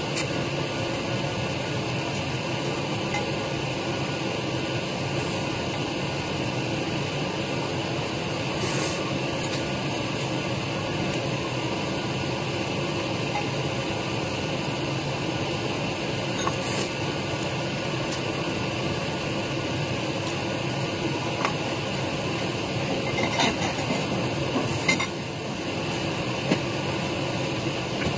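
Steady machine hum in a small room, like an air conditioner or fan running, with a few brief faint clicks from eating with chopsticks.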